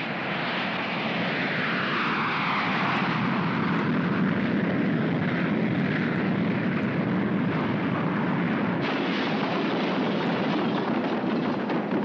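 Cartoon sound effect of a champagne bottle spraying like a jet engine: a loud, steady rushing hiss that sways a little in pitch.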